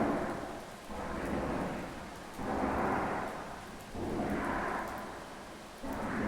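Rumbling, groaning sound of the kind reported as strange sounds from the sky. It comes as a series of swells, each starting suddenly and fading, one about every one and a half to two seconds.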